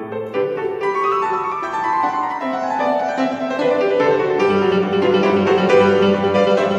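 Grand piano played solo in a classical piece: a stream of quick notes, with heavier bass notes coming in about two-thirds of the way through.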